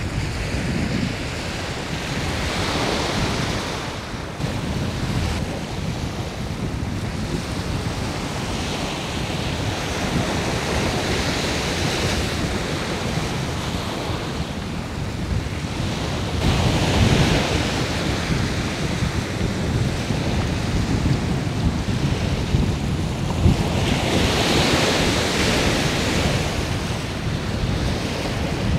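Sea waves washing in, swelling and falling away every several seconds, with a steady low rumble of wind buffeting the microphone.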